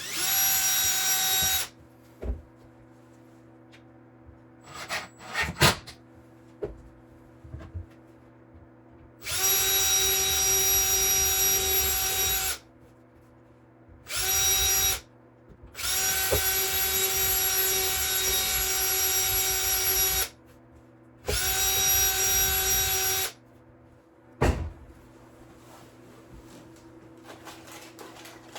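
Electric drill running in five separate runs of one to four seconds each, with a steady whine, and a few short knocks between the runs.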